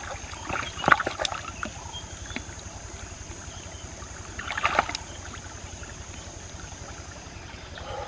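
Hands splashing and rummaging through water among the rocks of a shallow stream, with a few sharp knocks of stone, over steady running water. The splashing comes in two bursts, about a second in and again near five seconds.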